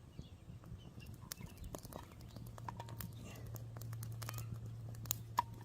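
Mushrooms frying in butter in a frying pan over a campfire: a soft sizzle with scattered sharp crackles and spits, and a low steady hum from about halfway.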